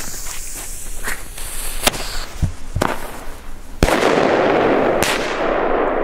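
Blackbox Vogelschreck bomb tube firing: sharp cracks about two and three seconds in, then a much louder salute bang in the air just before four seconds, rolling on as about two seconds of echo.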